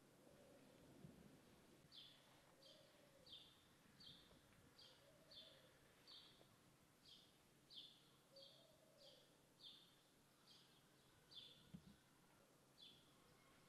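Faint outdoor quiet with a small bird repeating one short, falling chirp, about one and a half times a second, starting about two seconds in.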